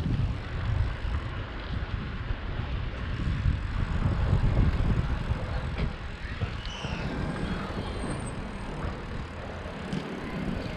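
Wind rumbling on a GoPro's microphone during a bicycle ride, with road noise underneath.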